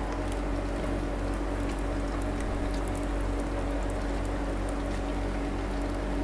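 Fish balls and meatballs deep-frying in hot oil in an aluminium pot, a steady sizzle full of fine crackles as they are stirred with chopsticks. A steady low hum runs underneath.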